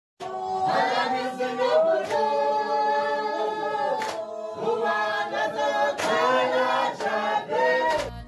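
A group of people singing together a cappella.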